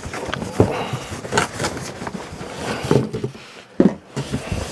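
Cardboard box and packing material being handled: irregular scraping, rustling and light knocks.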